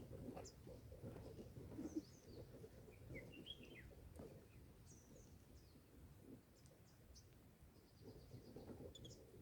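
Faint, scattered high chirps and short trills of small birds over a low rustling background noise, with a quick run of ticking notes near the end.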